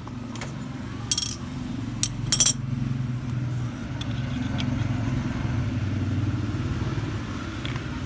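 Sharp metallic clicks and clinks about a second in and again around two seconds, as a chrome Zippo lighter case is handled and clamped in a pair of pliers. Under them runs a steady low rumble like a motor.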